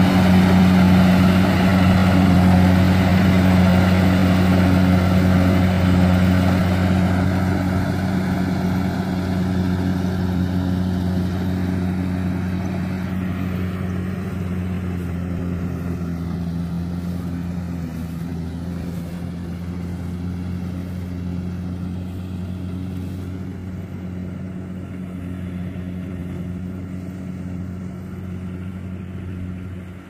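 Kubota DC-70G Plus combine harvester running steadily while it harvests rice: a low, even engine hum that fades gradually as the machine moves away.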